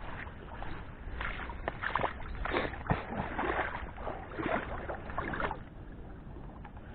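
Water splashing and sloshing in uneven bursts for a few seconds, then settling, over a low steady rumble of wind on the microphone.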